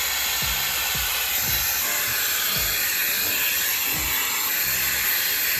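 Handheld hair dryer blowing steadily on a high setting, a loud even hiss of rushing air.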